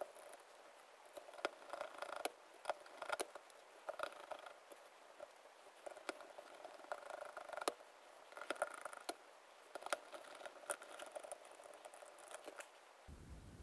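Faint, quick, scattered clicks and short scratchy rasps of a screwdriver bit working the screws out of a metal airsoft gearbox shell. The footage is sped up, so the sounds come fast and thin, with no low end.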